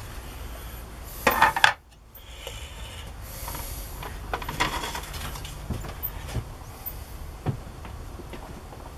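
Handling noises from a plastic boilie rolling table and baits on a worktop: a loud rubbing scrape about a second in, then scattered light knocks and clicks as things are set down.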